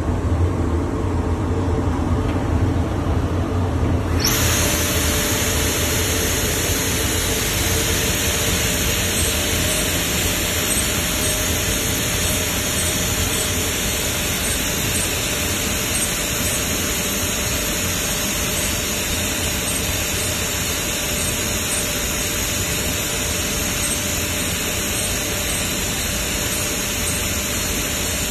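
Genitec GAM330 PCB router at work: a low machine hum, then about four seconds in a loud high-pitched hiss comes on abruptly and holds steady as the high-speed spindle and router bit cut arcs through the PCB panel.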